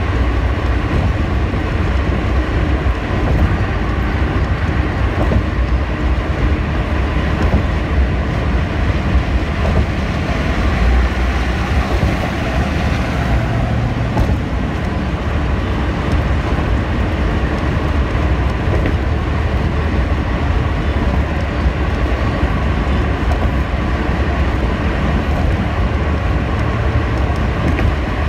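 Steady road noise inside a car's cabin at highway speed: tyres on the bridge deck with a low rumble underneath, unchanging throughout.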